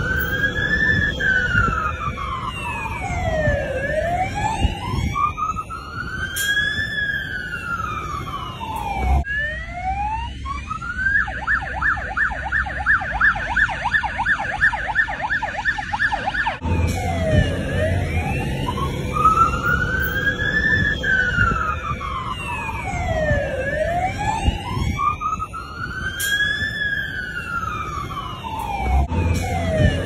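Australian fire engine siren in wail mode, its pitch sweeping slowly up and down. About a third of the way in it changes to a fast yelp for around five seconds, then returns to the slow wail.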